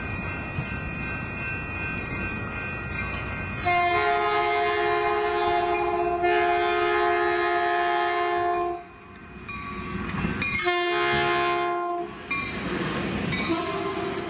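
Caltrain commuter train's horn sounding as the train comes into the station: a long blast that grows louder about four seconds in and cuts off, then a shorter blast. Under it runs the train's rumble as the bilevel cars roll by.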